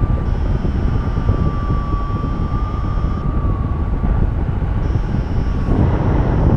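Airflow buffeting the microphone in flight: a steady wind rush, with a thin steady whistling tone that wavers slightly in pitch, and a louder gust near the end.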